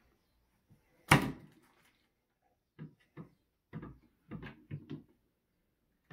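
Wooden cabinet door of an IKEA DUKTIG toy kitchen banging shut once, loud and sharp, about a second in, followed by a run of lighter knocks as the door is handled, opened and closed again.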